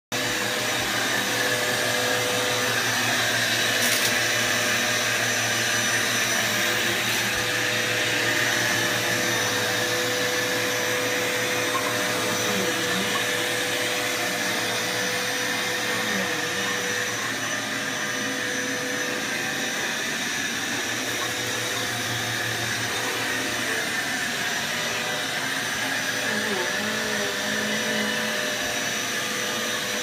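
Upright vacuum cleaner running steadily, its motor holding one steady whine, as it is pushed back and forth over carpet.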